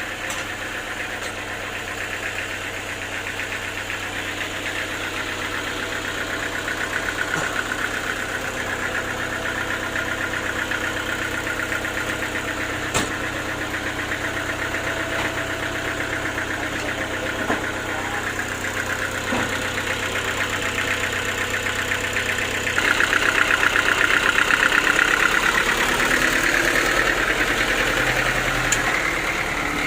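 A sawmill's engine running steadily, growing louder for several seconds about three quarters of the way in, with a couple of sharp knocks along the way.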